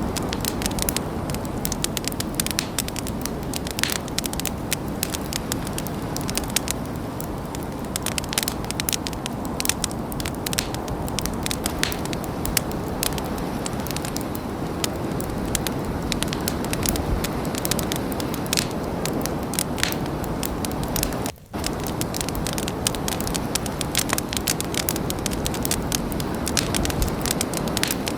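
Campfire burning, with wood crackling and popping in many sharp snaps over a steady hiss of flame. The sound briefly cuts out about three quarters of the way through.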